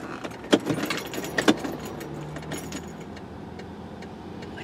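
Car keys jangling, with sharp clicks about half a second and a second and a half in, as the key is worked in a stalled car whose electrics are dead and which will not start.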